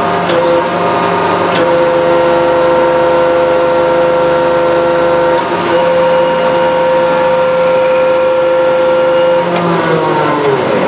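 Hydraulic press pump and electric motor running with a steady whine while the ram retracts. About a second before the end, the whine falls in pitch as the pump winds down.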